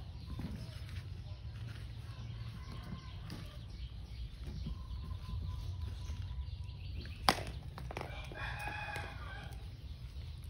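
Chickens clucking and calling, with one short call about eight seconds in, over a low steady rumble; a single sharp click a little before the call is the loudest sound.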